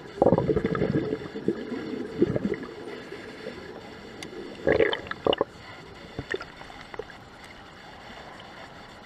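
A diver breathing through a scuba regulator underwater: a gurgling burst of exhaled bubbles lasting about two seconds near the start, then a shorter, brighter burst about five seconds in, with a few scattered clicks.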